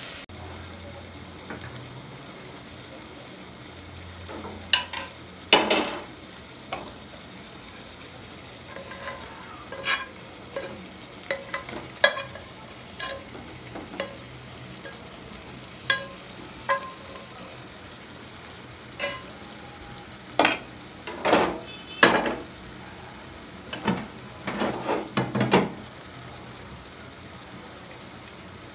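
A metal spatula makes irregular clinks and scrapes against an aluminium pot and a frying pan as fried potatoes are tipped in and stirred through the curry. Under it runs a steady, low sizzle of food cooking in the pot.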